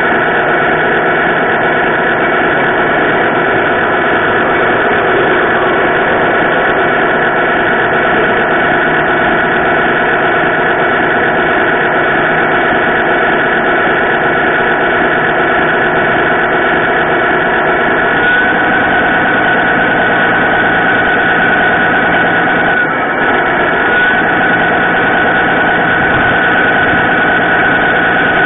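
Radio-controlled model truck running, heard from a camera mounted on it: a steady engine-like drone made of several constant tones, whose pitch pattern shifts about 18 seconds in.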